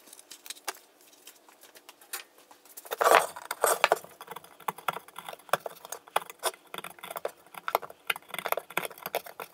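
A wooden-handled screwdriver prying and scraping at the thin aluminium end of a motorcycle radiator, making quick irregular metallic clicks and scrapes. The clicks start about three seconds in, are loudest at first, and go on unevenly after that.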